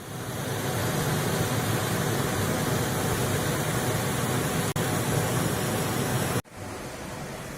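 Steady rushing of fast-flowing water, an even noise with no tone in it. It cuts out for an instant a little under five seconds in, then drops to a softer rush near the end.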